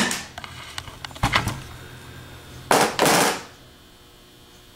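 Ball peen hammer striking the pivot bar in the cast nose housing of a 42MT starter to drive it out. A blow is dying away at the start, then come a few light taps and clinks, a sharp knock, and two heavy blows in quick succession about three seconds in.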